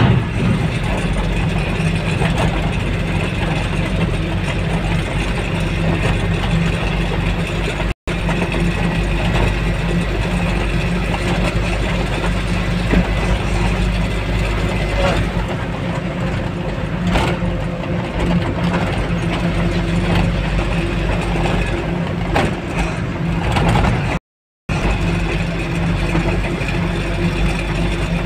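Truck engine running steadily, heard from inside the cab along with road noise. The sound cuts out for a moment twice, about 8 seconds and about 24 seconds in.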